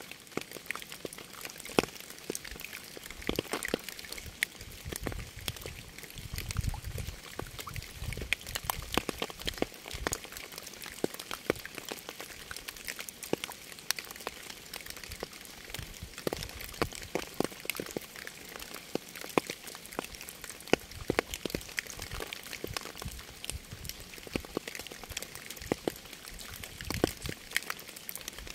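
Rain falling, with many separate drops ticking irregularly against a surface over a steady hiss.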